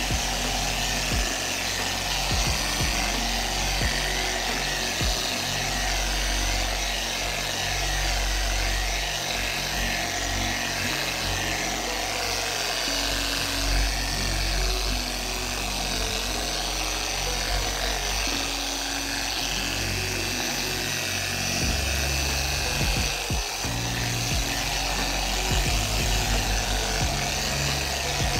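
Background music over a 3-inch polisher with a microfiber pad running steadily against a car's fabric headliner.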